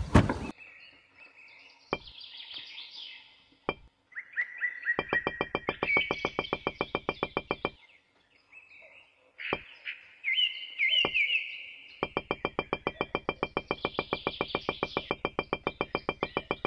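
Birds chirping, with a fast, even pulsing call in two long stretches. A few single sharp knocks come between them as small clay bricks and their basket are set down.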